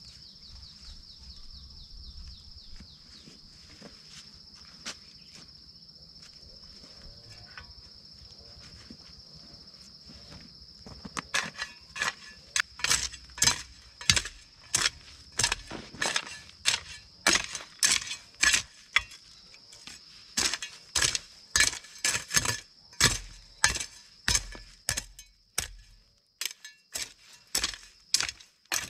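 A steady high insect drone, and from about eleven seconds in a run of loud, sharp knocks at roughly two a second, like something being struck repeatedly.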